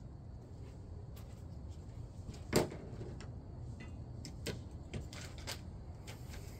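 Scattered clicks and knocks of tools and parts being handled during engine work, with one louder knock about two and a half seconds in.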